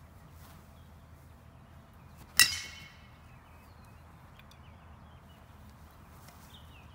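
A metal baseball bat strikes a homemade mask about two seconds in, smashing it. It is one sharp hit with a short metallic ring.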